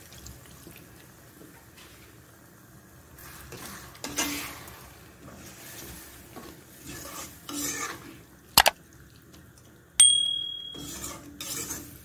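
Spatula stirring chicken curry in a kadai, with a few scraping strokes against the pan. Two sharp knocks on the pan come about two-thirds of the way in, the second ringing briefly.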